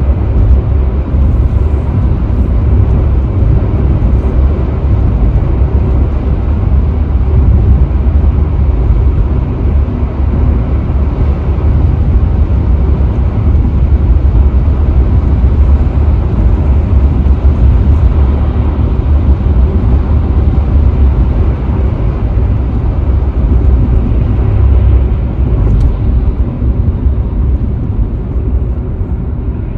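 Steady low rumble of road and tyre noise from a car cruising at freeway speed, heard from inside the cabin.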